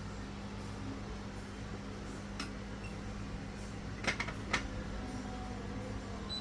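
Steady low hum with a few light clicks: one about two and a half seconds in, and three close together about four seconds in, like small metal parts or tools being set down.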